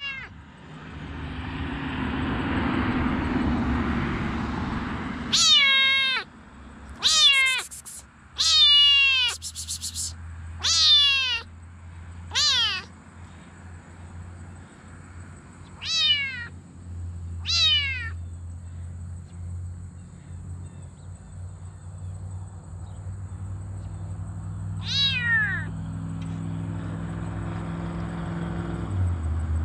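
Bengal kitten meowing over and over: about ten short, high mews that each fall in pitch. Most come in a quick run in the first half, then a few more spaced further apart.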